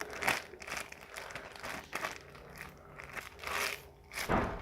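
Irregular crinkling and rustling as a foam squishy toy is handled, with a louder bump near the end.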